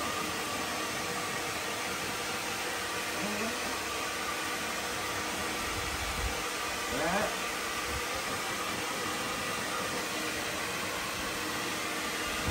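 Handheld electric hair dryer blowing steadily, with a brief rising squeak about seven seconds in.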